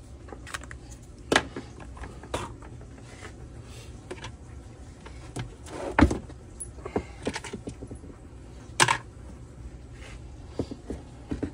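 Scattered clicks and knocks of small plastic and metal saw parts being handled and set down on a workbench. The loudest knock comes about halfway, as the cut-off saw's air filter is put down on the bench.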